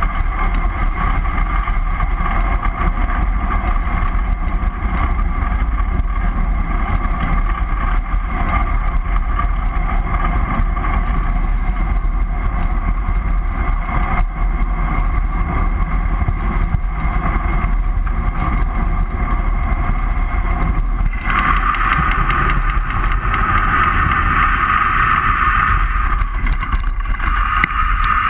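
Wind rushing and buffeting over the microphone of a handlebar-mounted GoPro as the bicycle coasts fast downhill: a loud, steady rumbling rush. About twenty seconds in it turns harsher and brighter.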